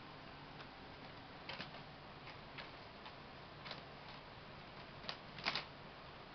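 Kittens playing on a hardwood floor: scattered light taps and scuffs of paws and small toys, the loudest a quick double scuff about five seconds in, over a faint steady room hiss.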